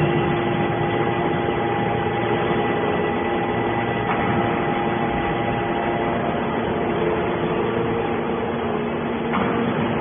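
Hydraulic scrap iron baler running, its motor and hydraulic pump giving a steady hum with several held tones over a noisy mechanical background, with a brief tick about four seconds in and a slight change in the sound near the end.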